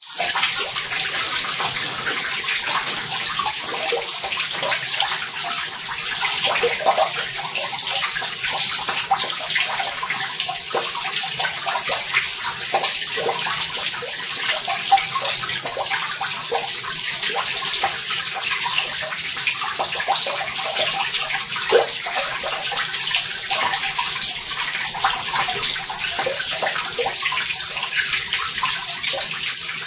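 Sacred spring water running steadily over rock in a thin sheet: a continuous splashing rush with frequent small splashes and plinks through it.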